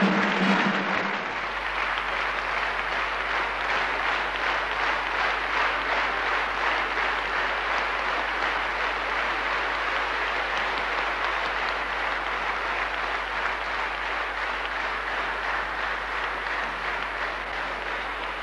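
Audience applauding steadily and at length after a song; the last of the music breaks off about a second in.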